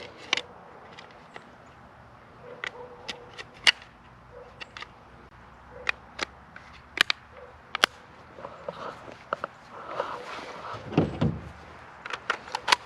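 Scattered sharp clicks and knocks of a Crosman DPMS SBR BB rifle being handled, its plastic and metal parts tapping and snapping, with a duller thud about eleven seconds in.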